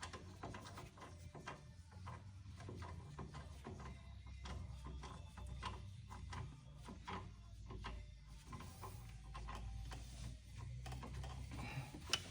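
Faint, irregular light clicks and ticks of hand tools and bolts as the brake caliper mounting bolts are run in, over a steady low hum.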